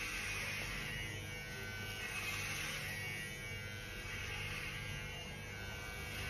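Electric hair clippers running with a steady buzz as they trim hair at the side of the head, near the ear.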